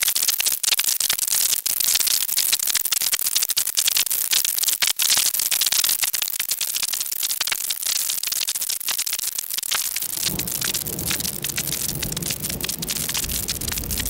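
Synthesized fire crackle from the Korg iMS-20 synthesizer app: dense random clicks and pops over a steady hiss. About ten seconds in, a low rumble comes in underneath.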